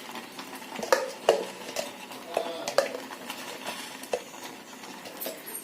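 A spoon stirring rice cooked with milk and ghee in a cooking pot, knocking against the pot's side about half a dozen times over a soft scraping.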